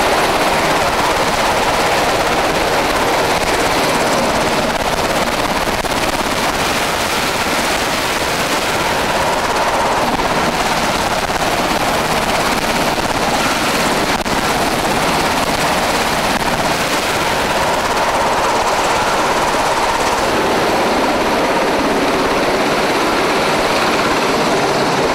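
Self-Defense Force helicopter running at close range: a steady, loud din of rotor and engine noise that does not let up.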